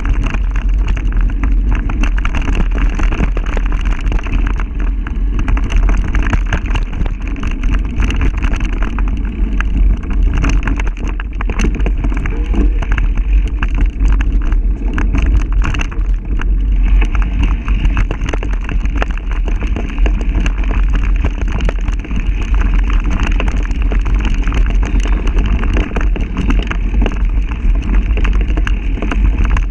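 Wind buffeting and rumbling on the microphone of a camera moving fast along a dirt trail, with constant small rattles and knocks from the rough ride.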